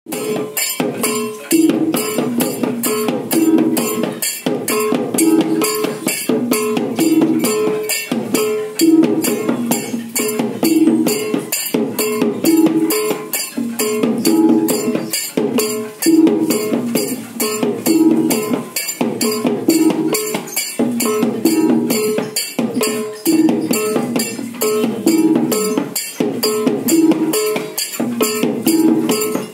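Balinese gamelan playing to accompany the dance: a fast, even clashing beat over a short metallic melody that repeats about every two seconds.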